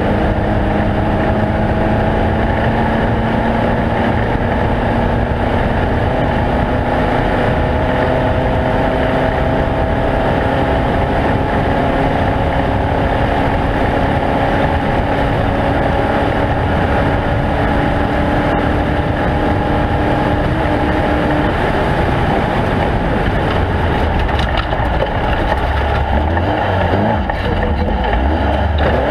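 Off-road race vehicle's engine running hard and steady, its pitch creeping slowly upward, over a dense rush of wind and road noise; a heavier low rumble comes in near the end.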